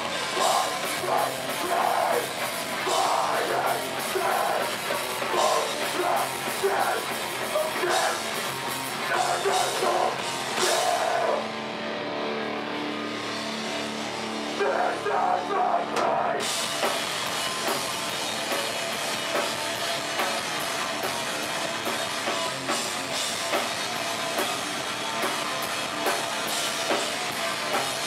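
A live hardcore/metalcore band playing: distorted guitars and bass, a Yamaha drum kit, and screamed vocals. About eleven seconds in, the drums drop out for roughly five seconds, leaving held guitar chords. Then the full band crashes back in.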